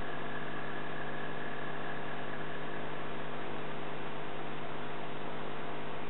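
A steady electrical hum made of several even tones over a constant hiss; a faint high tone fades out about three seconds in.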